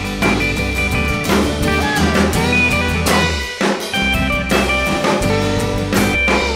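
Country-rock band playing an instrumental passage with no singing: a full drum kit with snare, bass drum and cymbal hits driving it, under electric guitar and bass guitar.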